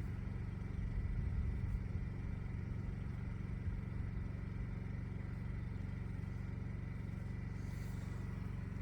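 Steady low background rumble with a faint, steady high whine over it; no distinct event stands out.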